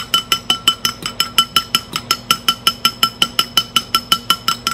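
A fork beating egg in a ceramic bowl, clinking against the side about seven or eight times a second in an even rhythm. Each stroke makes the bowl ring at the same clear pitch.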